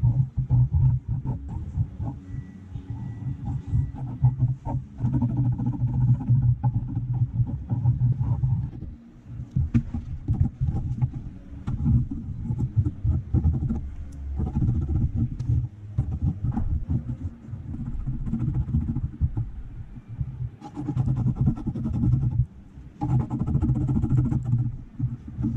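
Graphite pencil scratching and hatching across sketchbook paper close to the microphone, a rough, uneven rasp in quick strokes with a few short pauses.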